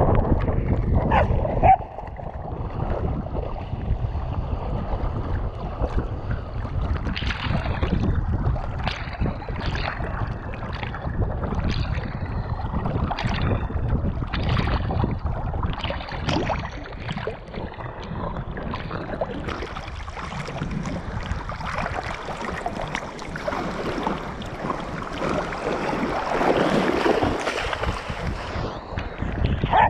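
Water splashing and wind noise on a camera riding on a dog's back as it runs through shallow surf and swims in the sea, with a run of splashes through the middle and small waves washing in.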